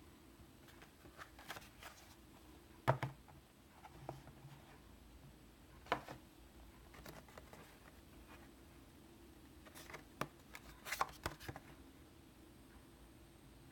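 Scattered handling noises in a quiet small room: a few sharp clicks and taps, the loudest about three and six seconds in and a small cluster around eleven seconds, over a faint steady hum.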